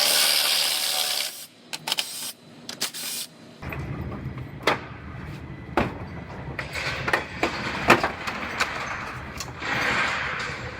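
Car teardown work sounds: a hiss for about a second and a half, then scattered clicks and knocks of tools and trim parts being worked loose, with another stretch of hiss near the end.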